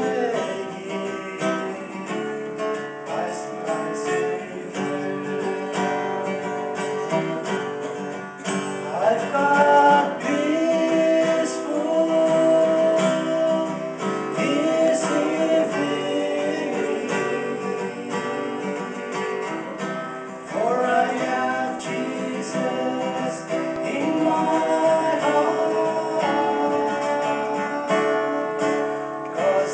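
Male vocals singing a song to a strummed acoustic guitar.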